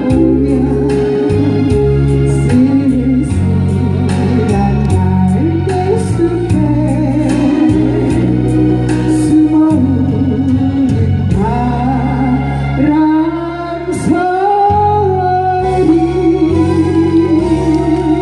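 A singer performing a Korean trot song over a keyboard-led accompaniment with organ-like tones and a steady beat; the sung melody comes through most clearly in the second half.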